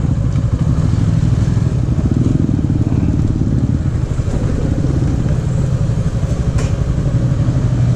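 Motorcycle engine running steadily at low speed while the bike is ridden slowly, heard close up from a camera mounted on the bike itself. The sound cuts off suddenly at the end.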